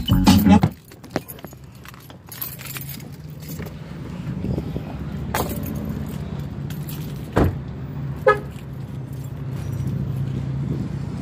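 Keys jangling and handling clicks, with a couple of sharp knocks, over the steady low hum of a car engine running.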